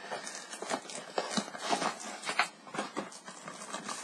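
Plastic movie disc cases being handled: a run of irregular light clicks and rustles.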